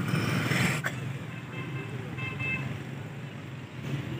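Street traffic noise: a steady low rumble of passing vehicles, with one sharp click a little under a second in and a short, faint high beep near the middle.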